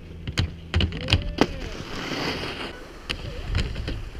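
Skis sliding and scraping over packed snow, with a scattering of sharp clicks and knocks.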